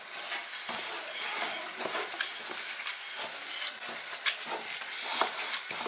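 A gloved hand squeezing and kneading damp white cornmeal dough in a bowl while dry cornmeal is poured in: irregular soft squishes and rustles with small scattered clicks.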